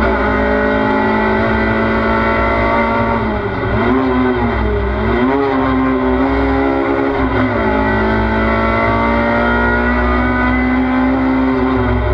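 Race car engine heard from inside the cockpit, running hard at a nearly steady pitch over a constant low road rumble. The pitch dips twice about four seconds in and eases down a little past seven seconds in.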